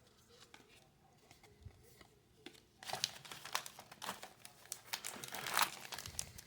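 Wrapper of a trading-card pack crinkling and tearing as it is opened, starting about three seconds in after a quiet stretch.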